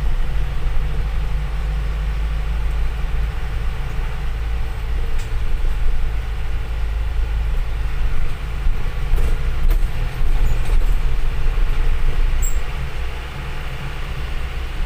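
Isuzu Elf NLR55 minibus's diesel engine and tyres, heard from inside the cab while driving: a steady low drone.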